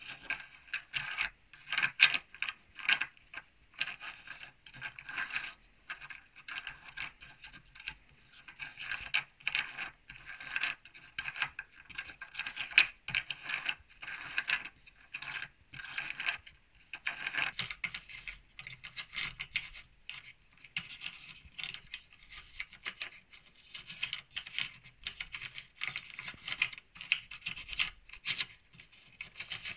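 Handmade wooden trammels of Archimedes turned by hand: the wooden sliders scrape and click along the crossed grooves of the wooden base in an irregular, continuous run of rubbing and clattering.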